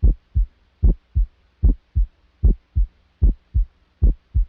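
Human heart sounds heard through a stethoscope: a steady lub-dub at about 75 beats a minute. Each beat is a pair of low thumps, the first one louder, and nothing is heard between the beats.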